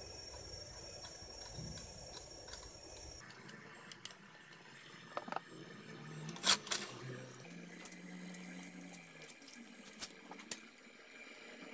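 Scattered light clicks and knocks of metal parts being handled on a homemade belt sander as a sanding belt is fitted over its rollers, with the loudest knock about six and a half seconds in. The sander's angle-grinder motor is not running.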